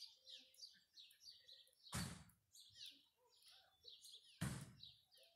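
Small birds chirping and singing in a busy chorus of short notes, broken twice, about two seconds and four and a half seconds in, by a loud, short rushing burst of noise.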